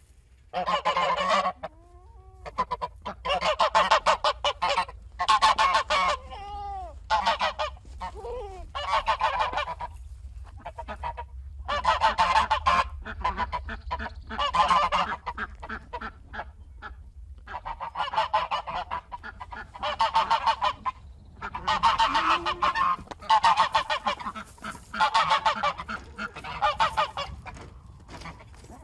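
Goose honking in repeated loud bouts of rapid calls, each bout lasting about a second, with short pauses between, over a steady low rumble.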